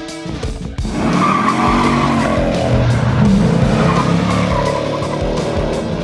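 Outro music gives way about a second in to a car sound effect: an engine revving with tyres squealing, and music continuing underneath.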